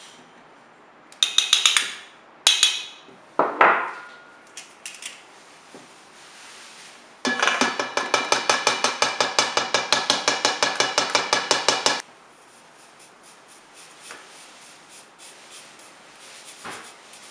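A metal sieve knocking against a stainless steel mixing bowl while cake flour is sifted. First come three ringing clanks, then about four seconds of rapid, even tapping, roughly eight taps a second, shaking the flour through. After that come faint scratching sounds as fingers rub the flour through the mesh.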